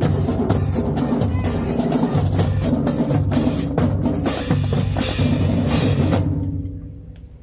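Marching band percussion section playing loudly, snare and bass drums hitting in a dense rhythm, cutting off together about six seconds in and ringing away.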